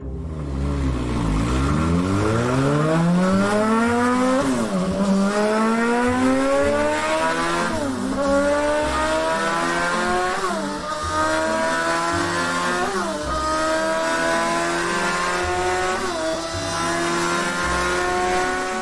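Car engine accelerating hard through the gears: its pitch dips, then climbs steadily, drops back at each shift about five times and climbs again. A low bass line runs underneath.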